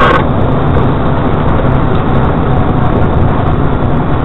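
Steady road and engine rumble of a moving car, a loud, even noise with no impacts, as picked up by a dashboard camera's microphone.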